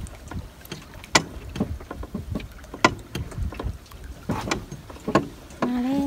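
Hand-pulled pontoon cable ferry being hauled in by its rope: irregular knocks and clicks with water lapping, and a brief humming tone near the end.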